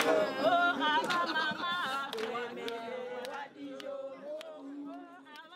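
A group of voices singing together to steady hand claps, fading out.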